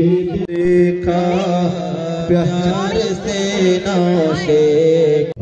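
A man sings a sehra, a wedding song in praise of the groom, into a microphone. The voice is drawn out and ornamented, gliding between notes over a steady low drone.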